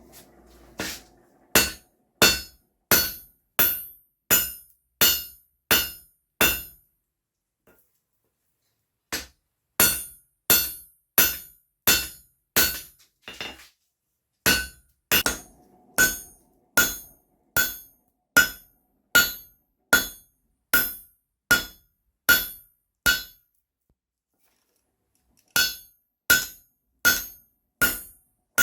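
Hand hammer striking C45 steel bar in forging, ringing blows about every 0.7 s. The blows come in four runs with short pauses between them.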